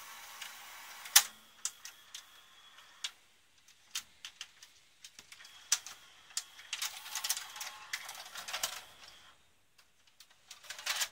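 Hard plastic clicks, knocks and rattles from a VCR's front bezel being fitted onto its chassis and snapped into place, with the sharpest click about a second in and a denser stretch of rattling in the middle.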